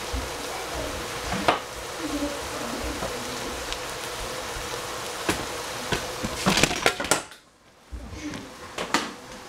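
Vegetables frying in a pan with a steady sizzle, and a spatula knocking and scraping against the pan, the knocks coming thickest about two-thirds of the way through. The sizzle drops away for about half a second just after, then comes back.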